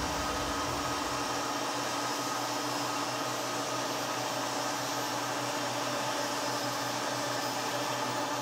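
Metal lathe running steadily while facing the end of a bolt to length: an even machine hum with several steady tones.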